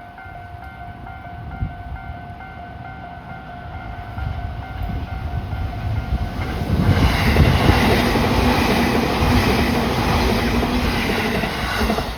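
Level crossing warning bell ringing in a steady repeating pattern. More than halfway in, a JR East E233-8000 series electric train passes at speed: a loud rush of running noise and wheels clattering on the rails, easing off near the end.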